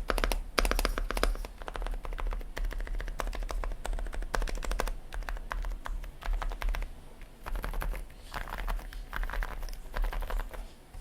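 Typing on a gasket-mounted Sugar65 mechanical keyboard with stock JJ silent linear switches, aluminium plate, full foam and PBT-style clone keycaps: a steady stream of soft, muted key presses in bursts, with brief pauses. A steady low hum lies underneath.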